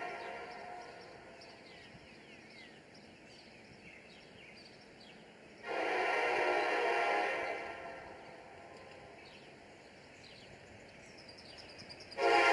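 Diesel freight locomotive's air horn sounding from a distance as the train approaches, a chord of several tones. One blast fades out at the start, a second lasting about two seconds comes near the middle, and a louder third blast begins near the end.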